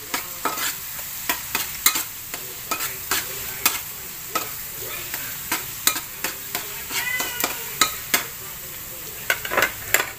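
Minced garlic sizzling in hot oil in a metal wok, with a spatula scraping and clacking against the pan in irregular strokes as it is stirred to keep the garlic from burning.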